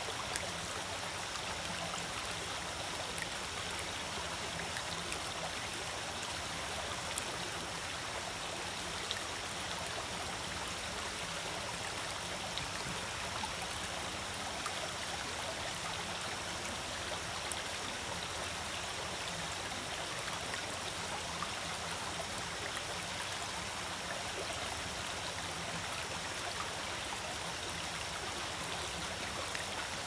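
Shallow rocky stream running over and between stones: a steady rush of flowing water with small splashes and trickles throughout.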